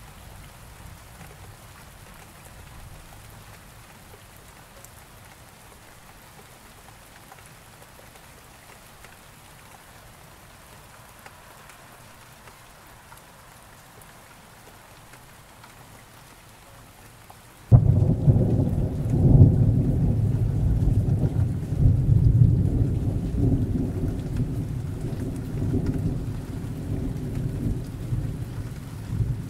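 Steady rain falling, then about eighteen seconds in a loud, low thunder rumble sets in suddenly and keeps rolling in waves.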